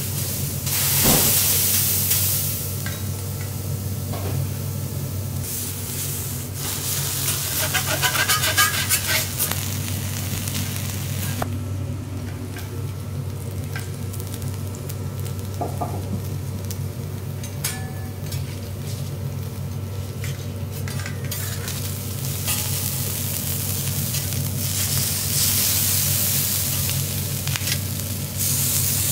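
Lobster and oil sizzling on a hot steel teppanyaki griddle, swelling louder a few times, with quick metallic ticks of a spatula against the plate partway through. A steady low hum runs underneath.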